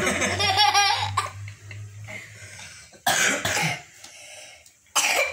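A child laughing in quick pulses for about a second, then two coughs, the first about three seconds in and the second near the end.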